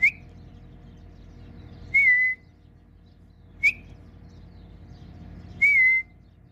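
A person whistling to call horses: a short upward whistle followed by a longer wavering note, the pair given twice.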